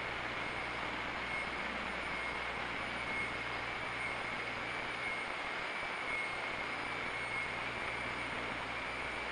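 Steady background hiss with a faint constant high whine and a low hum underneath; no distinct events.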